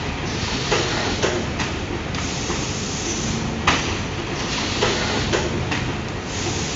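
Rotary zipper doypack filling and sealing machine running: a steady mechanical noise with sharp clacks at uneven intervals as the pouch turret indexes and the stations work.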